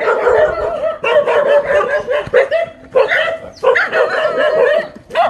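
A dog barking rapidly and loudly in long runs, broken by short pauses several times.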